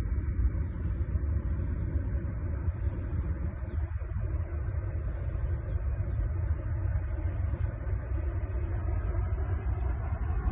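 Aircraft engines running with a steady low rumble.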